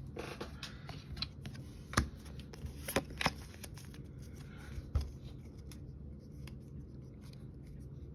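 Hands handling a foil Pokémon booster pack and its cards: soft rustling with a few sharp clicks and snaps in the first five seconds, then quieter.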